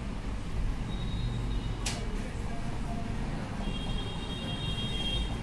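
Steady low background rumble with one short sharp click about two seconds in and faint high-pitched tones coming and going.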